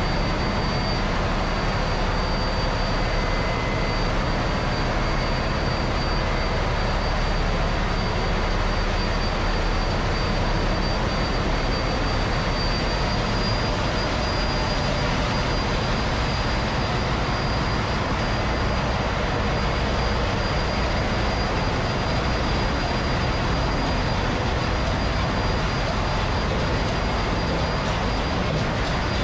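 Ship's engine room machinery running: a steady, dense din with a thin high whine over it.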